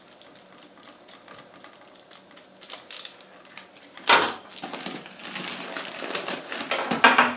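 Screwdriver turning a terminal screw on an electrical outlet, with faint small clicks, then set down on a wooden workbench with a loud knock about four seconds in. Clattering and handling noise from the outlet and its wires follows, with another sharp knock near the end.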